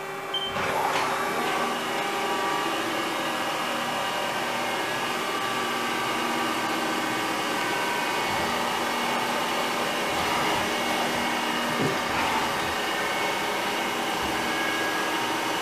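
2007 Haas SL20 CNC lathe running: a steady machine whir with several steady whining tones held throughout, and a sharp knock about half a second in.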